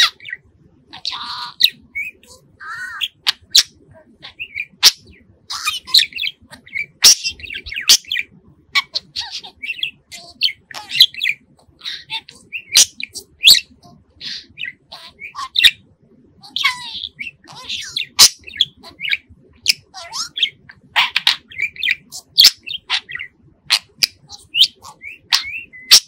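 A budgerigar chirping and whistling without pause: a rapid run of short chirps and whistles mixed with sharp clicks.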